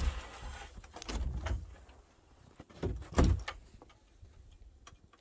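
Plywood shed door being handled, with a few low knocks and thuds. The loudest pair comes about three seconds in.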